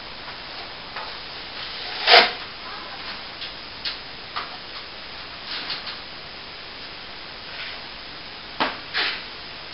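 Short, irregular scraping strokes of a hand tool on a plaster wall, the loudest about two seconds in and two more close together near the end, over a steady hiss.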